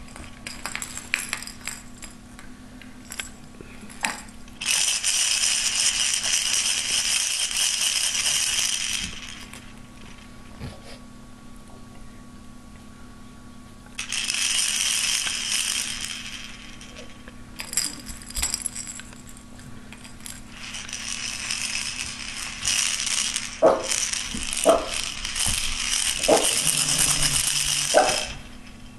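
Plastic baby toy rattle shaken, jingling in long bursts of several seconds, with short shakes in between.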